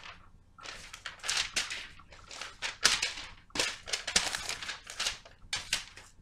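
Paper rustling in irregular bursts as sheets in a ring binder are handled and its pages turned.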